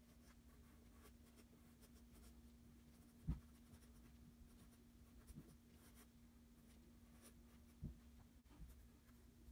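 Faint scratching of a graphite pencil drawing light strokes on paper over a steady low hum, with two soft low thumps, one about three seconds in and another near the end.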